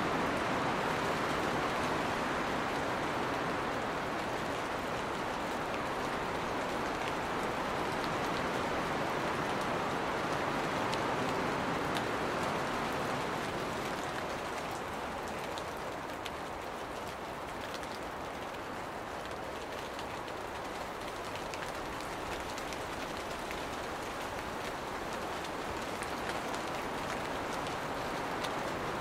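Steady rain-like hiss, an even wash of noise with a few faint ticks, getting slightly quieter about halfway.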